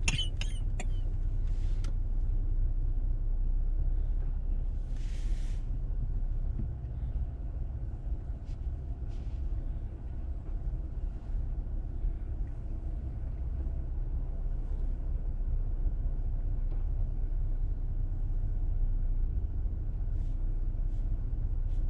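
Low, steady rumble of a car with its engine running, heard from inside the cabin. There are a few sharp clicks at the start and a short hiss about five seconds in.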